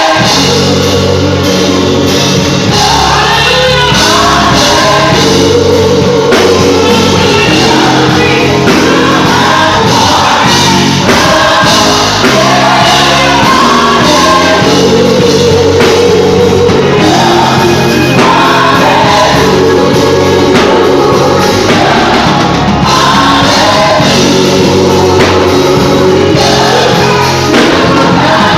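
Live gospel worship music: a group of singers backed by a band with bass and drums, playing steadily throughout.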